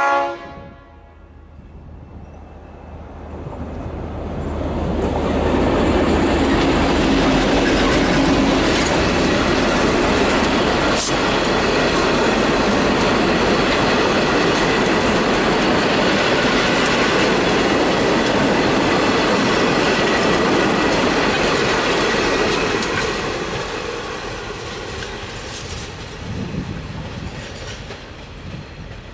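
A passenger train passing at close range: a horn cuts off right at the start, then the train's noise builds over a few seconds. The wheels clatter loudly over the rail joints for about fifteen seconds, then fade away near the end.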